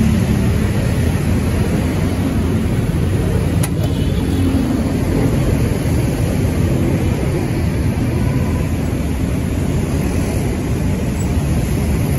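Steady city street traffic, vehicle engines running and passing, with one brief click about three and a half seconds in.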